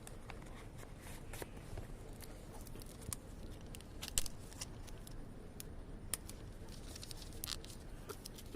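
Phone packaging being handled and opened by hand: scattered sharp clicks and rustles, the sharpest about four seconds in.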